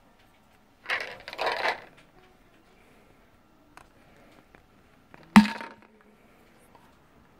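Two short scraping rustles of hands on the hard plastic lid of a BlenderBottle shaker, then a few seconds later a single sharp snap, the loudest sound, as the plastic flip cap is worked.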